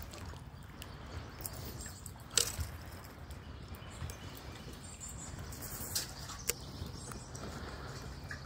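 Faint lapping water around a kayak over a low steady rumble, with a sharp click or splash about two and a half seconds in and two smaller ones around six seconds.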